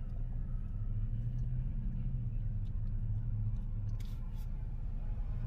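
Steady low road and engine rumble inside a moving car's cabin, with a couple of faint clicks about four seconds in.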